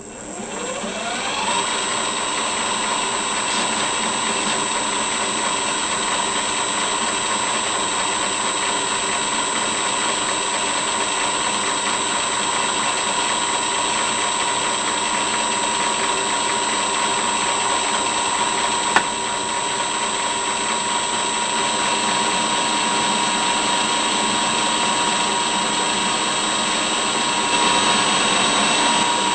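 VFD-driven metal lathe switched on, its motor spinning up with a rising pitch over about a second and a half, then running steadily with a high whine while a high-speed-steel tool bit takes a roughing cut along a steel bar. A single click comes about two-thirds of the way through.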